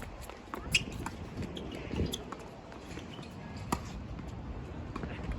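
A few sharp, irregularly spaced knocks of a tennis ball being hit or bouncing on the court, the loudest about a second in and near the four-second mark, over a steady low rumble of strong wind on the microphone.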